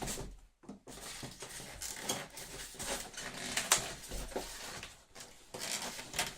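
Packaging being handled during unboxing: irregular rustling with scattered clicks and knocks, and one sharper click a little past halfway.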